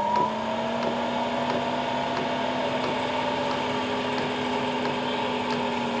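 Chinese diesel heater running, its combustion-air fan's hum stepping up in pitch right at the start as the supply voltage is raised to about 15.8 V, then holding a steady higher hum at about 2000 RPM before the controller can pull it back. Faint regular ticks, about one and a half a second, come from the fuel dosing pump.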